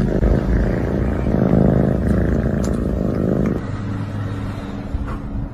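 A domestic cat purring, changing to a steadier low hum about three and a half seconds in.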